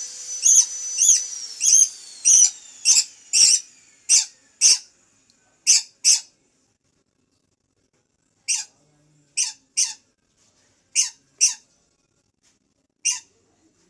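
Pet Papuan lory (nuri parrot) giving short, sharp, high squeaky calls, one or two a second, with a pause of about two seconds midway. A faint steady high whistle fades out in the first few seconds.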